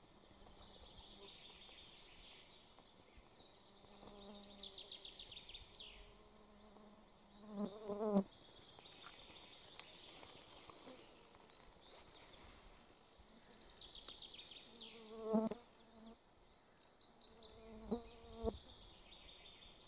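Flies buzzing around close by, a buzz that comes and goes several times, loudest about eight seconds in and again around fifteen and eighteen seconds.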